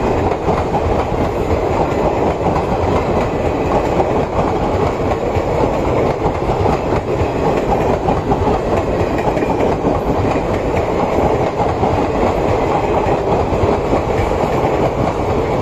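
Passenger coaches of a train rolling past, a steady loud noise of steel wheels running on the rails.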